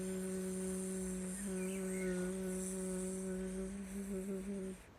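A person's voice making a long, steady "bzzz" buzzing hum in imitation of bees, held on one pitch. It breaks briefly about a second and a half in, wavers near the end and then stops.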